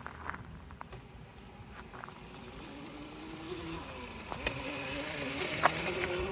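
Electric dirt bike motor whining, its pitch wavering up and down with the throttle and growing louder over the last few seconds.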